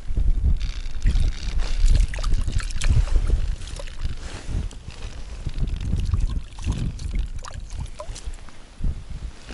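A bream splashing in a water-filled ice-fishing hole as it is grabbed and hauled out by hand, with crackling splashes throughout. Heavy low bumps, loudest in the first few seconds, come from handling or wind on the microphone.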